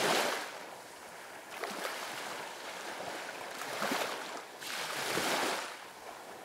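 Gentle surf washing up over sand, swelling as a wave comes in at the start and again about five seconds in.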